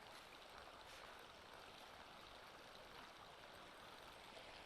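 Near silence with a faint, steady hiss of creek water flowing.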